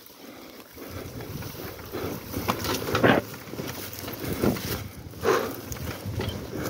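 Honda Tornado's single-cylinder engine running low and steady on a steep downhill, under the rider's heavy breathing, with several loud breaths, the loudest about three seconds in.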